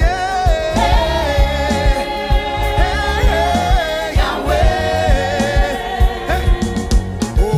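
Gospel song: a choir singing with a lead voice over a steady drum beat.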